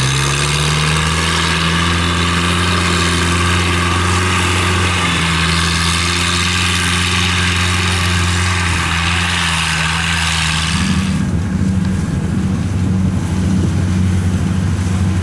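Engine of a tracked rice-hauling crawler running steadily as it drives through the stubble, a drone with a hiss over it. About eleven seconds in the sound cuts abruptly to another engine's lower, pulsing note.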